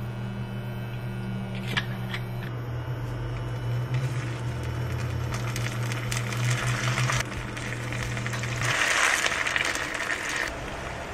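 Rice-paper-wrapped patties sizzling in hot olive oil in a frying pan as they are laid in with metal tongs, with a few sharp clicks of the tongs early on. A steady low hum runs underneath and stops about two-thirds of the way through. The sizzling is loudest near the end.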